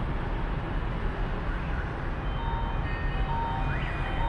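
A steady low background rumble, with a faint electronic tune of short beeping notes coming in about halfway through.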